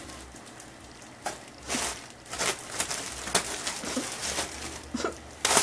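Scattered soft rustles and clicks of small objects being handled, with one sharper click near the end.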